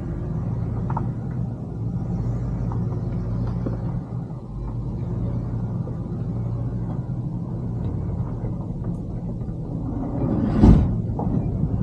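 Motorhome engine running with a steady low hum, and one sharp thump near the end.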